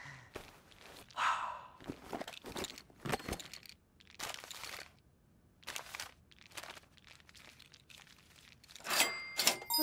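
Cartoon sound effects of paper being crinkled and handled, in a string of short rustles and crunches, with a brief steady high tone near the end.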